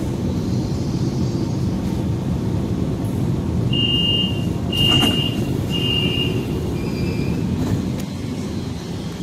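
Chengdu Metro Line 17 train at a station: a steady low rumble, with three short high beeps around the middle followed by a fainter, lower fourth beep, the door chime.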